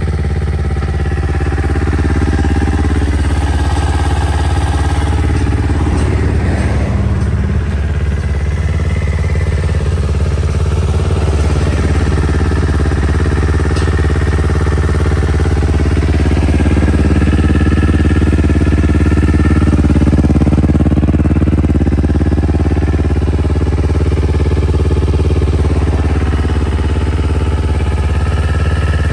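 Kawasaki Ninja 250R's parallel-twin engine idling steadily through an aftermarket slip-on silencer.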